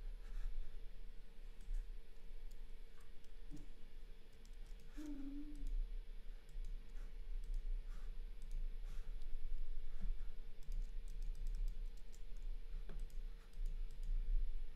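Scattered light clicks of a computer mouse and keyboard over a steady low hum.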